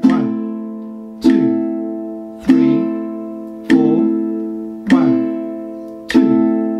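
Ukulele strummed on an A minor chord in single downstrokes, one strum about every 1.2 seconds (50 beats per minute), each chord ringing and fading before the next.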